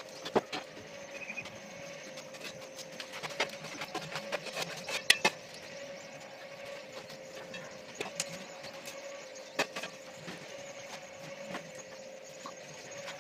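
Electric rotisserie motor running with a steady hum as it turns the spit, with irregular sharp crackles and pops from the charcoal fire beneath, the loudest about five seconds in.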